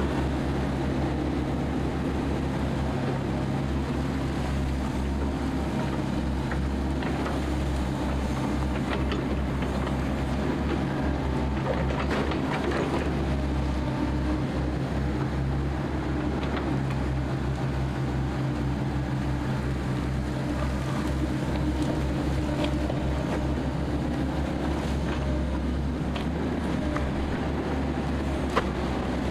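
Diesel engines of tracked amphibious excavators running steadily under working load, a constant low drone. Occasional short clicks and knocks from the digging gear, with a sharp click near the end.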